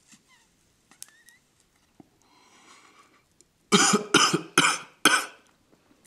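A man coughing loudly four times in quick succession, the coughing brought on by inhaling the smoke of a hand-rolled cigarette of homegrown tobacco.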